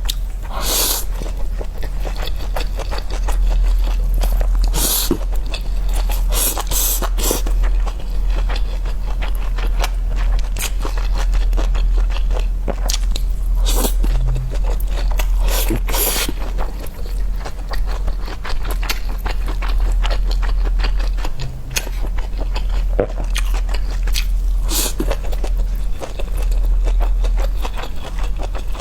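A person eating: chewing and crunching with scattered scrapes and clicks, over a steady low hum.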